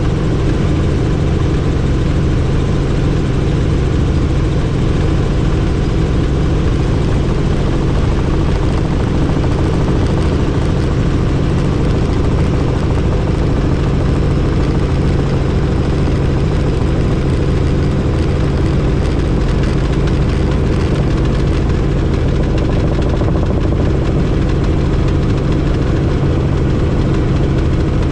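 Helicopter in steady flight, heard from on board: engine and rotor noise with a constant low hum, unchanging throughout.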